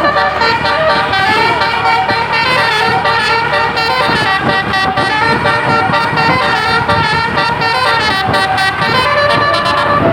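Telolet Basuri multi-tone bus horn playing a melody: a run of loud, continuous horn notes that step from pitch to pitch.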